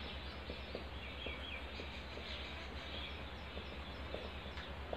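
Marker writing on a whiteboard: faint scratches and small ticks over a steady low hum, with some faint high chirps.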